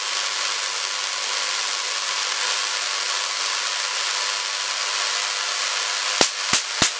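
DC corona discharge hissing steadily from a high-voltage needle-to-hacksaw-blade air gap as the voltage is raised. About six seconds in, three sharp spark cracks in quick succession as the roughly 10 cm gap breaks down.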